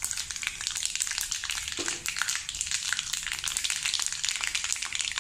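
Mustard seeds and dried red chillies frying in hot oil in a kadai for a tempering: a steady sizzle with many small crackling pops.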